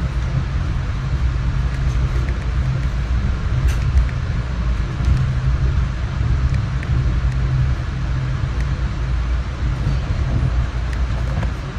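Steady running rumble inside a Metro-North commuter train car moving at speed, with a few faint ticks scattered through it.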